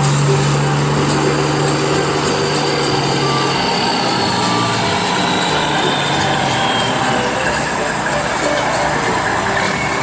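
Heavy construction vehicle engine running steadily amid busy work-site noise, its low drone fading about a third of the way in.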